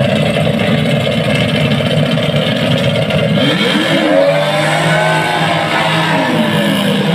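Several racing boats' outboard engines running at full throttle as the boats launch from a standing start. From about three and a half seconds in, the engine pitch sweeps up and then falls back as the boats pull away.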